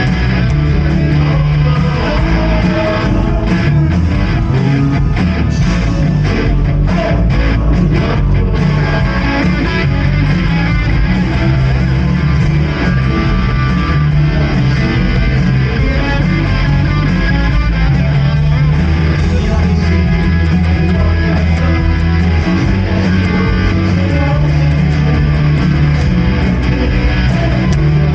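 A live church praise band playing a worship song with guitar to the fore, over bass and drums, loud and continuous.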